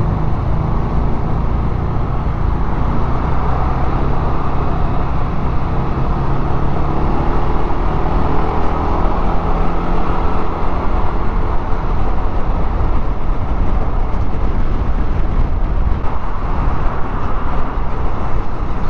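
Yamaha NMAX scooter under way at road speed: steady wind rush on the microphone with the scooter's single-cylinder engine running underneath.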